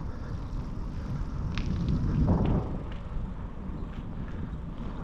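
Wind and rolling noise on the microphone of a moving bicycle, a steady low rumble that swells about two seconds in, with a few faint clicks.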